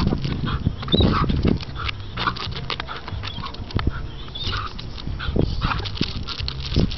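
A dog whimpering in a few short high squeaks, among many quick clicks and taps.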